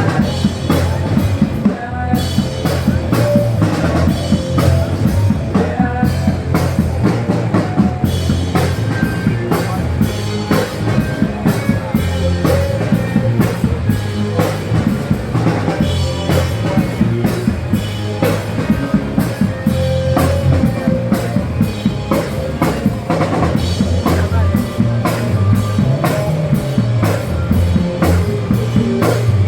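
Music with a drum kit keeping a steady beat, bass drum strikes regular throughout.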